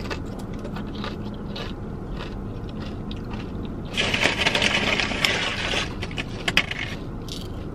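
Soft chewing of a tortilla chip, then a crinkling rustle of food packaging lasting about two seconds from about halfway in, with a few sharp clicks after it, over a low steady cabin hum.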